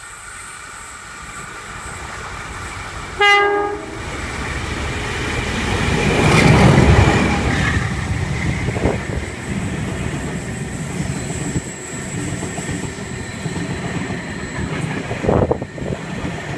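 A train horn gives one short blast about three seconds in. The locomotive then passes close by, followed by an unpowered Waratah double-deck electric train being towed, rolling past with a rhythmic clickety-clack of wheels over the rail joints and a louder knock near the end.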